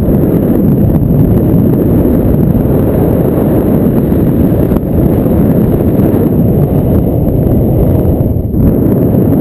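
Loud, steady wind buffeting on the microphone of a paraglider's harness-mounted camera in flight, with brief dips about five and eight and a half seconds in.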